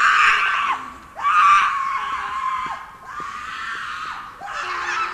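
A person screaming over and over, about four long screams in a row, each dropping in pitch at its end.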